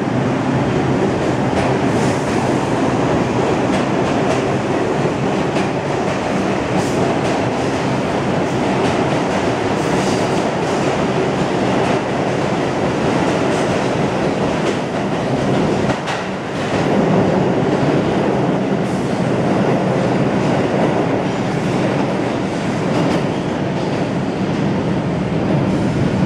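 Two New York City subway trains, an R62A and an R142, pulling out of an underground station side by side on adjacent tracks: a steady, loud rumble and clatter of steel wheels on rail, with a brief slight lull about sixteen seconds in.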